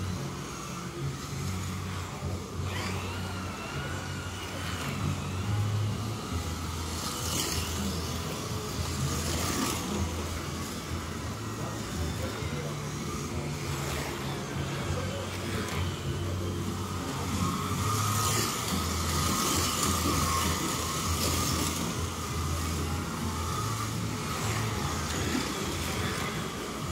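Scalextric slot cars racing on a routed track: the whine of their small electric motors, with cars sweeping past close by several times, each pass a brief surge.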